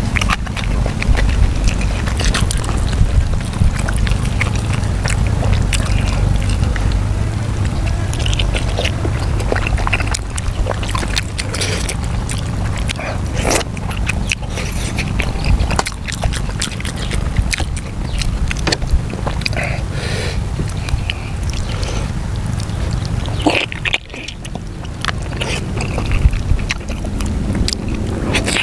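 Close-up eating sounds of soft stewed pork being chewed and pulled apart by hand: wet chewing, lip smacks and sticky clicks that come irregularly throughout. A steady low rumble runs underneath, heavier in the first half.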